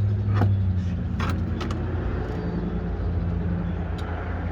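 Steady low engine hum, with a few sharp clicks and knocks of tools being handled, a cluster of them about a second in.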